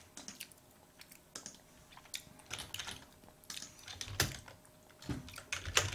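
Computer keyboard typing: short, irregular key clicks, with a few soft low thuds in the last two seconds.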